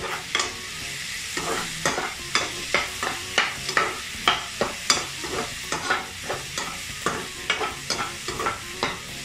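Slotted metal spatula scraping and knocking against a stone-coated wok, about two to three strokes a second, as capsicum, tomato and onion are stir-fried over a steady sizzle.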